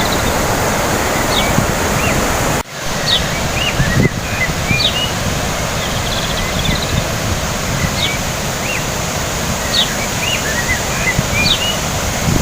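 Birds chirping in short, repeated calls over a steady rushing of water, with a brief break a little over two seconds in.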